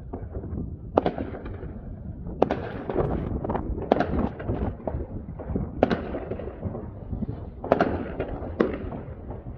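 Fireworks going off: sharp bangs every second or two over a continuous din of crackling and popping from many more distant bursts.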